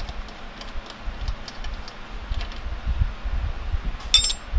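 Engine oil running from the crankcase drain hole of a Honda CA160 into a drain pan, with low bumps of handling and faint ticks. A bright metallic clink comes near the end.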